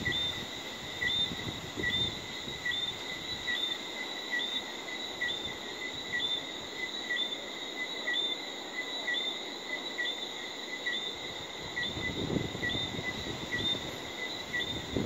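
Steady repeated chirping of a night-calling animal: a short low note and a higher rising note, paired and repeated a little under twice a second. A low rumble swells in about twelve seconds in.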